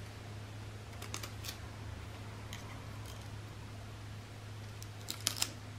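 Small crinkles and clicks of a glitter sticker being handled and peeled for sticking onto a plastic PET bottle. A few light clicks come about a second in, and a sharper cluster of clicks about five seconds in.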